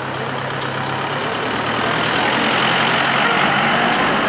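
A bus's engine running as the bus drives past close by. The engine and road noise grow steadily louder as it nears.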